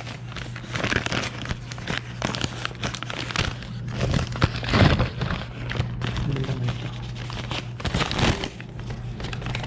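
Plastic bags and food wrappers rustling and crinkling as they are handled and unpacked, in many short irregular crackles, over a steady low hum.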